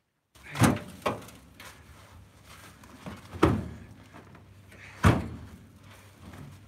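Heavy ash firewood rounds thudding and knocking as they are lifted, set down and shifted in a pickup truck bed, with four sharp impacts spread over a few seconds.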